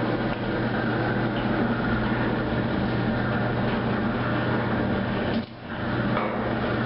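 Electric motor of an automatic bottle capping machine running steadily with a low electrical hum and a few faint ticks, dropping out briefly about five and a half seconds in.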